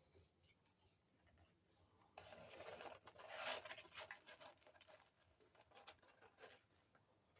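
Faint eating noises from a person chewing food at close range, louder for about two seconds starting two seconds in, then fainter bursts.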